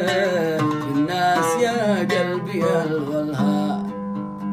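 Arabic song: a voice singing a long, ornamented line with sliding pitch over plucked-string accompaniment. The voice fades out near the end, leaving the plucked strings.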